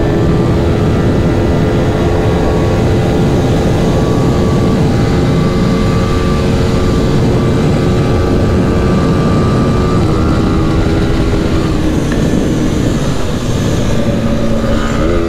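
Yamaha R15 V4's 155 cc single-cylinder engine running at high cruising speed, its note held steady, under heavy wind rush on the microphone. The engine note drops slightly about ten seconds in and rises near the end.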